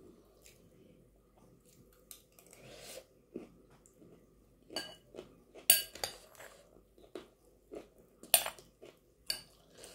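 Metal spoon scraping and clinking against a glass bowl while scooping chana chatpate. There are several sharp clinks, the loudest about six and eight and a half seconds in, with soft chewing between.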